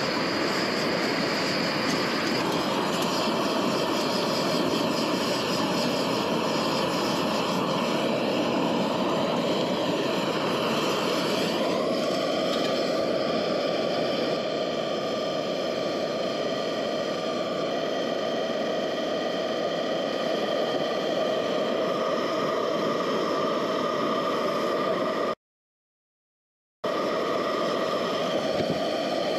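Trangia stove's gas-converter burner running full under a pan of water as it heats to a rolling boil: a steady burner roar, with a faint higher hum joining about twelve seconds in. The sound cuts out for about a second and a half near the end.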